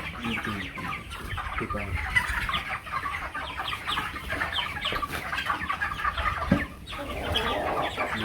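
A flock of young broiler chickens clucking and cheeping together, many short calls overlapping, with a brief lull about seven seconds in.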